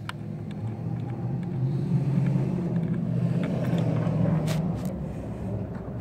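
A motor vehicle's engine hum that swells over a couple of seconds and then eases off, like a vehicle going by, with a few sharp clicks.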